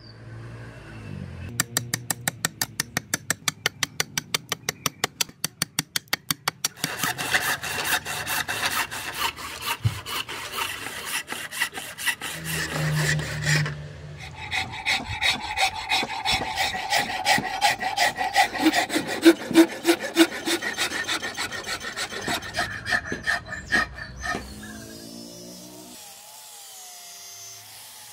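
Hand tools working a rosewood axe-handle blank. Quick, regular strokes of a hand saw through the wood, then denser scraping and rasping strokes. It goes much quieter near the end.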